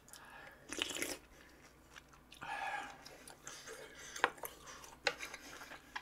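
A person chewing and crunching food, in irregular bursts with a few sharp mouth clicks.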